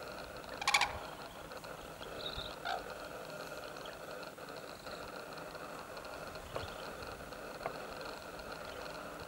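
Quiet outdoor ambience with a steady background hiss. Under a second in there is a brief rattling, pulsed call, with a few fainter short calls later.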